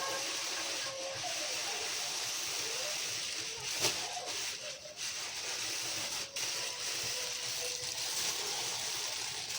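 A radio playing quietly over a steady hiss, with a faint thread of music, and one sharp click about four seconds in.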